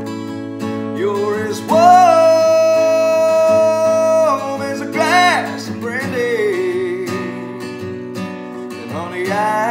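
Male voice singing a slow country ballad over strummed acoustic guitar, holding one long note for over two seconds and then sliding through a quick vocal run.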